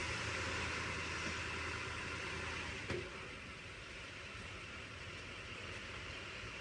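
Truck engine idling steadily, with a short knock about three seconds in, after which the low engine note fades and a steady hiss remains.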